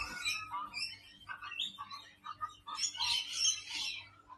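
Several birds chirping and calling over one another, busiest about three seconds in.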